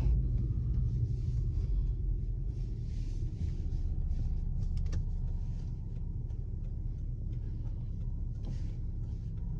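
Lexus LS460 on the move, heard from inside the cabin: a steady low rumble of engine and road noise.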